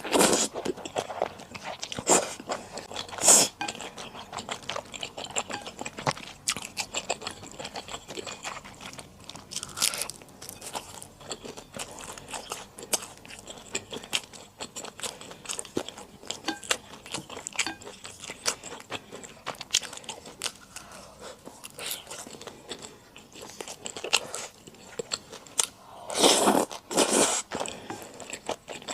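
Close-miked eating sounds of chewing rosé buldak flat glass noodles: many quick wet clicks and smacks of the mouth and noodles, with a louder, longer stretch of eating noise near the end.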